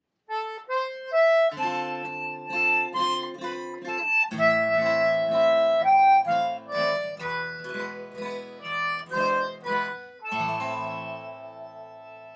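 Background music: a harmonica melody over plucked guitar chords, ending on a held chord that slowly fades.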